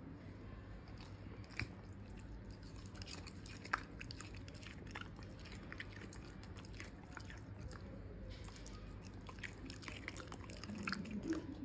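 A puppy chewing food, a run of small wet clicks and smacks with a couple of sharper snaps.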